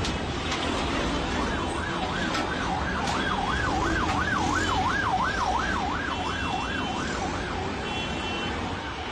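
Vehicle siren wailing fast, its pitch sweeping up and down about two to three times a second. It rises in about a second and a half in and fades near the end, over a steady noisy din.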